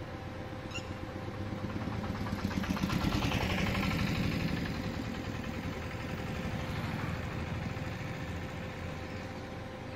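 A motor vehicle engine passing by, growing louder to a peak about three seconds in and then fading away, over a faint steady hum.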